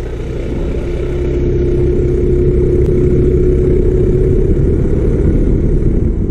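Motorcycle engine running under way with a deep rumble and a steady drone, swelling over the first couple of seconds and then holding steady.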